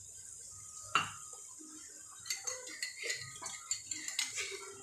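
A metal utensil knocking and scraping against a metal cooking pot while stirring wet masala paste. There is one sharp clink about a second in, then a quick run of clinks and scrapes in the second half.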